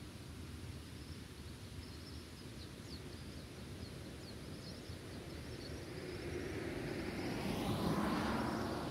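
Outdoor ambience of wind rumble with a small bird's short, high chirps. From about six seconds in, a vehicle passes, growing louder to a peak near the end and then fading.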